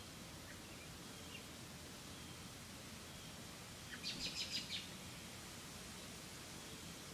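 Quiet outdoor background, with a small bird giving a quick run of about six high chirps about four seconds in. These chirps are the loudest sound.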